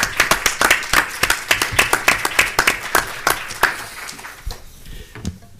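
Applause: many people clapping together, dense at first, then thinning out and dying away in the last second or so.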